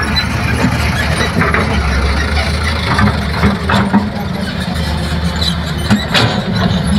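Heavy diesel engines of a dump truck and a crawler excavator running steadily at a low hum, with scattered clatter and a couple of sharp knocks about four and six seconds in.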